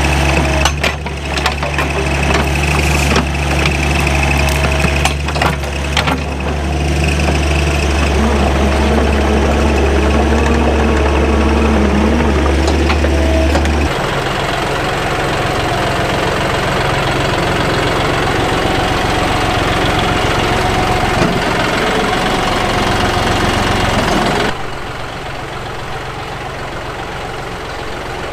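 John Deere 5055E tractor's three-cylinder diesel engine running steadily, with a few sharp clanks in the first several seconds. The engine note shifts about halfway through and turns quieter near the end.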